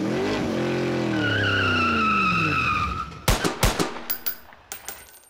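Intro sound effects: a car engine going by, its pitch falling away, with a tyre squeal. Then two gunshots about half a second apart, followed by a few lighter clicks and a high metallic tinkle that fades out.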